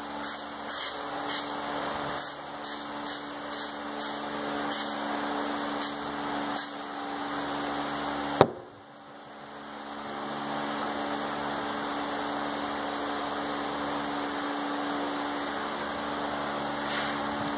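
Aerosol can of spray adhesive giving a rapid series of short hisses, coming less often and stopping about two-thirds of the way through the first half. Then a single sharp knock, followed by a steady hum.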